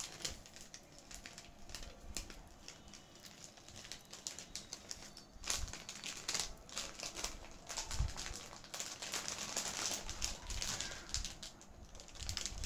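Jewellery being handled on a table: scattered light clicks, taps and rustles, with a few louder clicks about halfway through.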